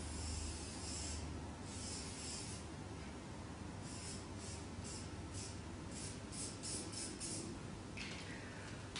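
Scratching strokes of a pen drawing on a diagram, short and repeated, at a quicker even pace of about two to three strokes a second in the middle stretch, over a low steady room hum.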